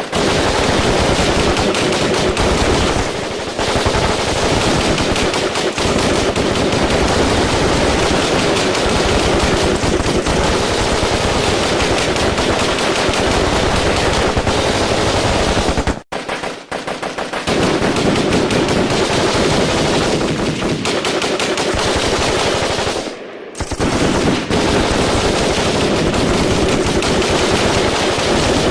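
Firefight: sustained automatic gunfire from several weapons, with dense overlapping bursts and shots almost without pause. It breaks only in brief lulls about 3, 16 and 23 seconds in.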